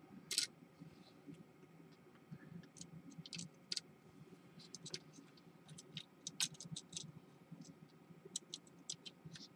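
Faint, irregular small clicks and light scratching from fingers handling a replacement compass module and its thin wires inside a Hubsan X4 H501s quadcopter's plastic shell, with the sharpest clicks about half a second in and again past the middle.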